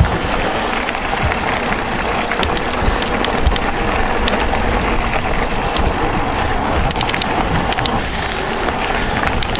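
Mountain bike rolling along a gravel trail: a continuous rumble of tyre and rushing-air noise, with sharp clicks and rattles from stones and the bike, bunched together near the end.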